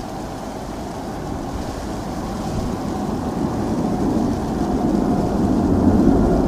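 Jet engines of a Boeing 777 climbing steeply after takeoff, heard from the ground as a steady low rumble that grows gradually louder.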